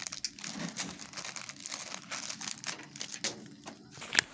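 Irregular crinkling and crackling of a wrapper being handled close to the microphone, with one sharp click near the end.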